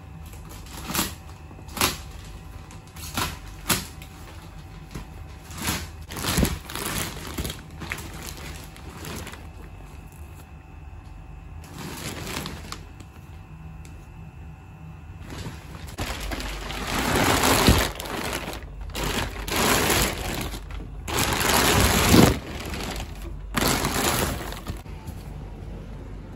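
Thin clear plastic wrapping being pulled and crumpled by hand: a run of sharp crinkles and crackles that grows louder and denser in the second half.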